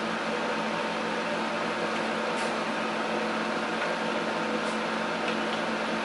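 Steady mechanical hum with hiss, even throughout, with a couple of faint ticks.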